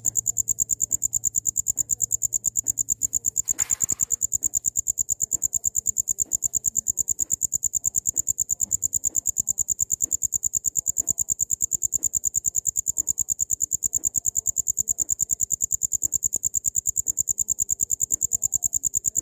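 Cricket chirping in a fast, even, high-pitched pulse that never lets up. A short burst of noise comes about four seconds in.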